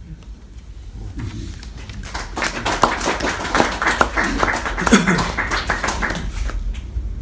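A small audience applauding in a small room. The clapping starts about two seconds in and dies away about a second before the end, with a voice briefly heard during it.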